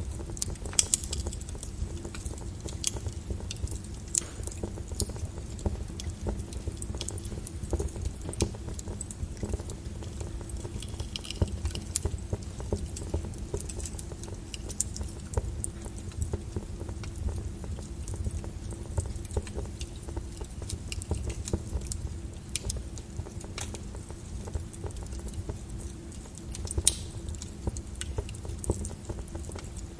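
Wood fire burning with a small flame in a fireplace, crackling with irregular pops and snaps and a few louder cracks, over a steady low rumble.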